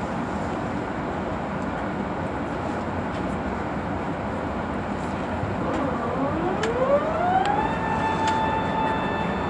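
Steady engine and airflow noise inside an airliner's cabin on approach. About six seconds in, a mechanical whine from the aircraft's hydraulic drives rises in pitch and then holds steady, with a few faint clicks.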